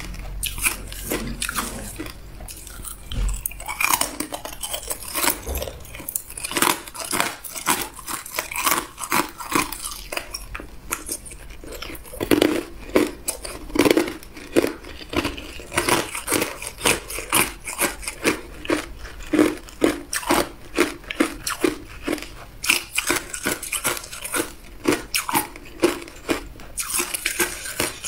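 A person biting and chewing hard ice, a rapid run of crisp crunches and cracks.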